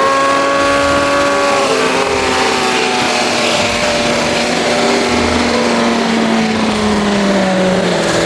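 Motorcycle engine running at road speed under heavy wind rush on the microphone, its note sinking slowly and steadily.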